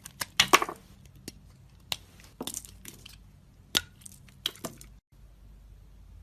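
A blade cutting into a bar of soap: a string of crisp cracking scrapes, some in quick clusters and some single sharp snaps, which stops about five seconds in.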